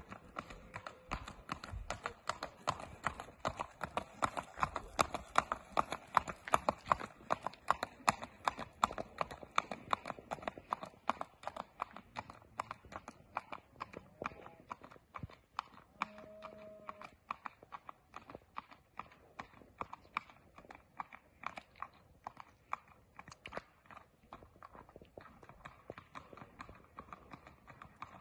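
A horse's hooves clip-clopping on an asphalt road in a quick, even rhythm under a rider. The hoofbeats are loudest in the first few seconds, fade as the horse moves off down the road, and grow louder again near the end as it comes back.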